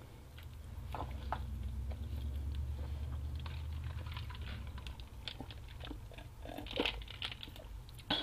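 A person chewing and biting pizza close to the microphone: irregular small crunches and wet clicks of the mouth, a few louder near the end, over a steady low hum.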